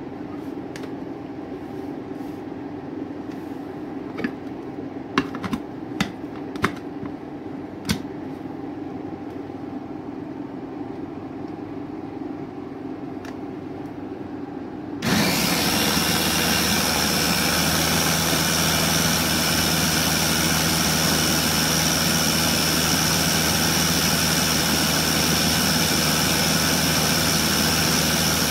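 Electric mini food chopper: first a few sharp plastic clicks and knocks, then about halfway through its motor starts suddenly and runs steadily and loud, chopping avocado with water into a paste.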